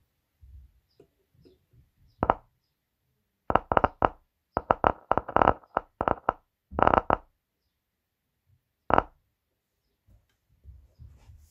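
Boss Audio subwoofer popping and crackling as a 9-volt battery is touched to its voice-coil terminals: one pop about two seconds in, then rapid runs of scratchy pops for about four seconds, and a last single pop near the end. The pops mean the voice coil is passing current and moving the cone, so this unit works.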